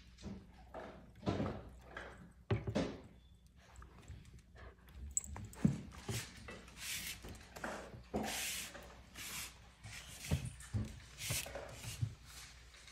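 Dogs and puppies moving and playing on a tiled floor: a run of short rustles and scuffs with a few light knocks.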